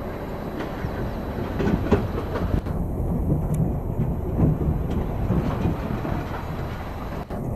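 Wheeled excavator's diesel engine running while it works, compacting topsoil on the embankment slope, with irregular knocks and clatter that are loudest in the middle.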